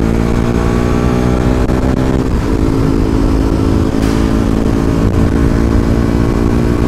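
KTM Duke motorcycle's single-cylinder engine pulling hard as the bike accelerates. Its note steps down once about two seconds in, then carries on steady, over a heavy rumble of wind on the camera.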